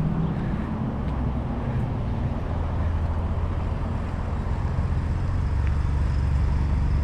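Street traffic: a motor vehicle's engine running close by, a steady low rumble that grows stronger about a second and a half in.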